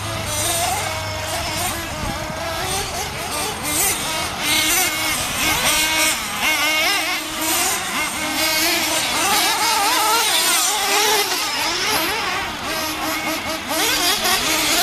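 Several nitro RC truggies' small glow-fuel engines racing, a high buzzing whine that rises and falls as the engines rev up and back off through the corners.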